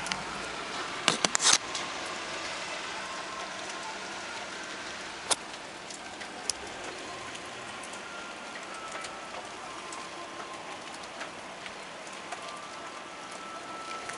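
Steady rain falling, an even hiss. A few loud sharp knocks come about a second in, and single ticks follow later.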